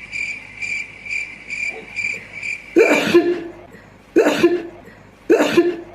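A fast repeating high chirp, about four a second, for the first half. Then a person sneezes three times, about a second and a quarter apart.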